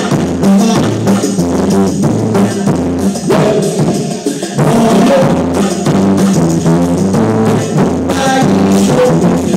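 Live band music: an electric guitar over a drum beat and a steady bass line.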